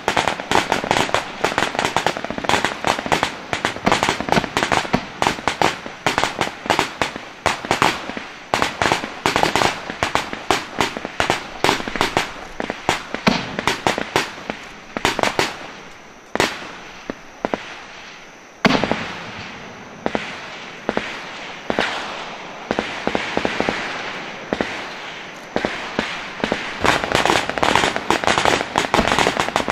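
Gunfire in rapid, irregular volleys, several sharp cracks a second. In the middle the cracks thin out to single shots that each ring out and fade, the loudest about two-thirds in, before rapid firing picks up again near the end.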